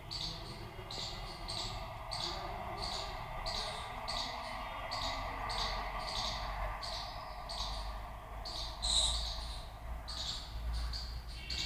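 Short high-pitched chirps from a small animal, repeating at about two a second, with one louder chirp about nine seconds in, over faint steady background noise.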